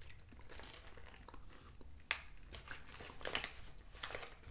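Plastic bag of frozen meatballs crinkling as it is handled and tipped over a plate, with a few short sharp ticks, the clearest about two seconds in.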